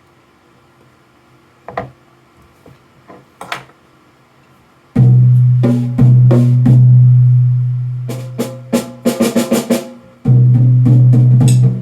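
Drum being played: a few light taps, then about five seconds in a deep drum stroke that rings out long and low, more strokes, a fast roll near the end, and another deep, long-ringing stroke.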